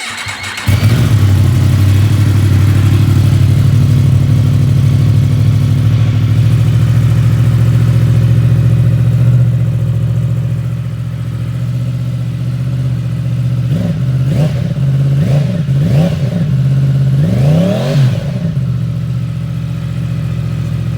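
2020 Yamaha MT-10's crossplane inline-four running through its stock catalytic converter and an Akrapovic slip-on muffler. It idles steadily, then is blipped several times in quick rises and falls of engine speed near the end, the last blip the highest.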